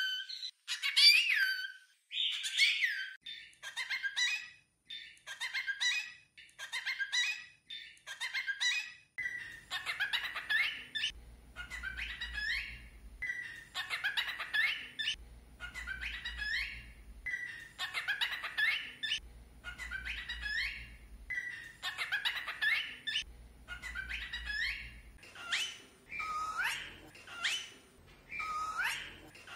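Cockatiel whistling and chattering in short, high, speech-like phrases, one after another about a second apart. It is a talking bird imitating Portuguese greetings such as 'oooi'.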